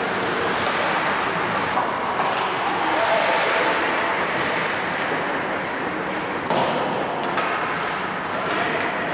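Ice hockey game sounds in a rink: a steady wash of noise with a few sharp knocks and thuds, and indistinct voices calling out.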